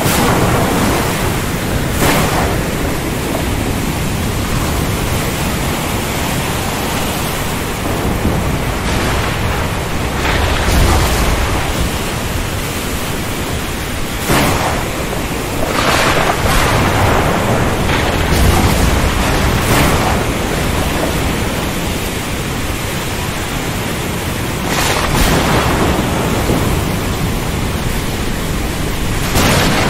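Thunderstorm: heavy rain pouring steadily, with low rolling thunder swelling twice and several short, sharper cracks scattered through.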